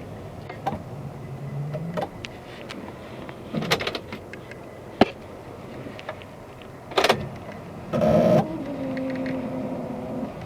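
Clicks and short electric motor whines from a Mercedes Sprinter van that won't start. A louder burst about eight seconds in is followed by a steady whine that slowly drops in pitch.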